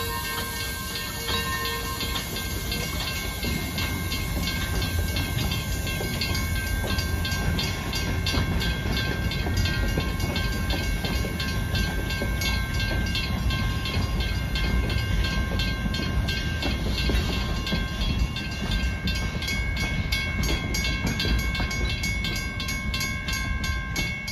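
Narrow-gauge wooden passenger cars rolling past at a grade crossing: a steady low rumble with rapid, regular clicking of wheels over the rail joints, and thin steady high ringing tones over it.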